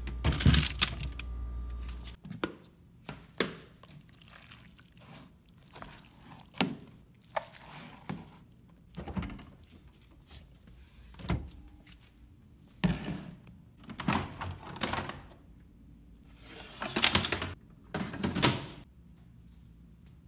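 Handling noises from a plastic food container being put into a refrigerator and the fridge door being moved: about a dozen scattered thunks and clunks, loudest near the start and near the end.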